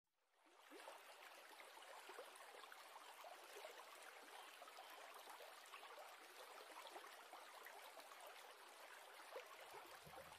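Faint sound of a shallow stream flowing over rocks, starting about half a second in.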